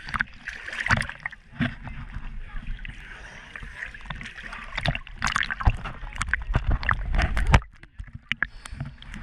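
Sea water splashing and sloshing against a GoPro held at the surface by a swimmer, in many irregular splashes. About seven and a half seconds in the sound drops and goes dull for a moment as the camera dips under the water.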